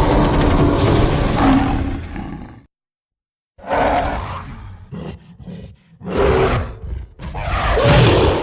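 Designed gorilla creature vocalizations built from movie monster sound effects: a long roar that cuts off a little under three seconds in, then after a short silence three shorter roaring calls, the last swelling to the loudest.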